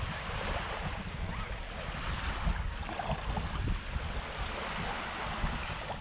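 Small waves washing onto a sandy shore in a steady hiss, with wind buffeting the microphone in an uneven low rumble.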